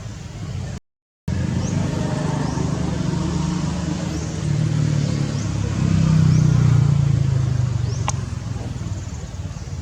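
A motor vehicle's engine passing close by: a low drone that builds to its loudest about six to seven seconds in, then fades. Faint high chirps repeat over it, and the sound cuts out completely for about half a second near the start.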